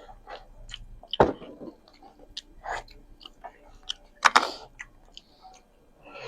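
Close-miked chewing and biting of food: irregular wet clicks and crunches, the loudest about a second in and again just after four seconds.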